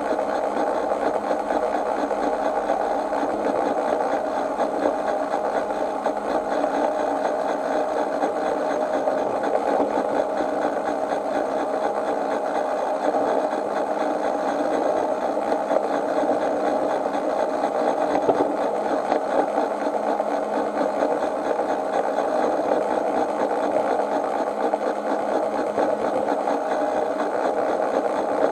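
A miniature garden railway train running steadily along its track, heard from on board: a continuous mechanical running noise of the wheels and drive on the rails.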